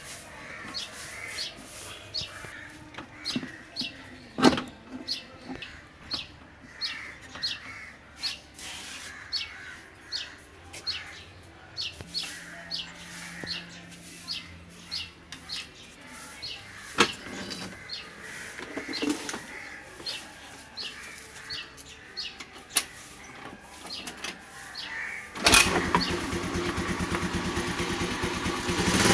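Small birds chirping repeatedly. About 25 seconds in, a Honda Dio scooter's small engine starts abruptly and keeps running with an even, fast rattle, much louder than the birds.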